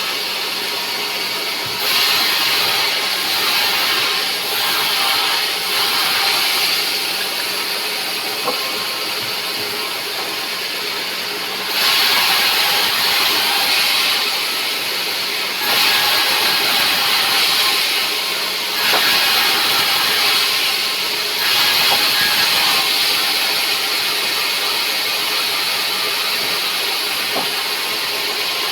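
Sawmill saw running steadily with a constant motor hum, with several stretches of a few seconds each where the hissing cutting noise swells as the blade goes through rubberwood.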